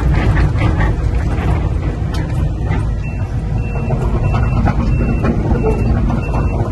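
2018 Case CX210D hydraulic excavator's diesel engine running steadily. From about three seconds in, a travel alarm gives short, even beeps about one and a half times a second, the sign that the machine is tracking.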